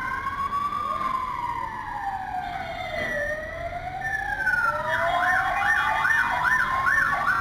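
Emergency vehicle sirens: a slow wail rising and falling, joined about four seconds in by a second siren's fast yelp, over a low steady rumble.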